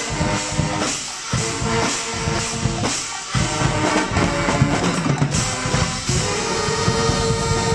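Guggenmusik band playing live: brass and drums together, with a long held note starting about six seconds in.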